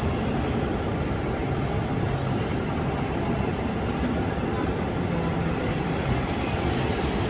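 Train running: a steady noise with a low hum underneath and no sudden events.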